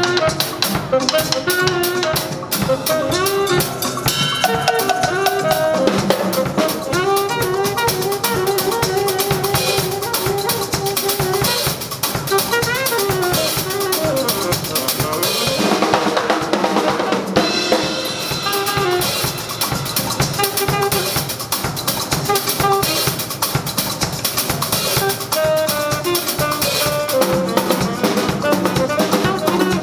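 A saxophone and a drum kit play jazz live together: the saxophone carries a melody of held and moving notes over busy snare, bass drum and cymbal playing.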